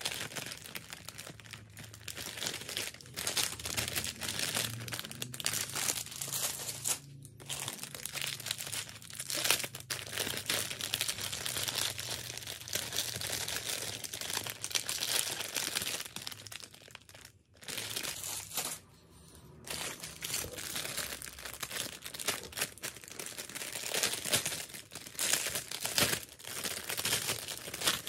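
Clear plastic packaging bags crinkling as they are handled, with a few brief pauses.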